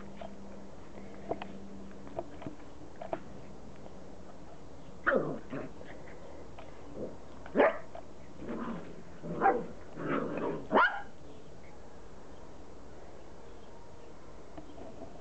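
Border collie puppies barking and yipping: a string of short, high barks in the middle, the loudest about eight and eleven seconds in.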